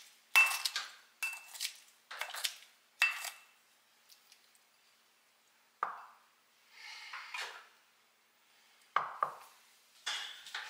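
Kitchen scissors snipping kimchi in a ceramic bowl, about four sharp cuts in the first three and a half seconds, with the blades clinking against the bowl. After a pause there are a few softer knocks and a rustle as the bowl and scissors are handled.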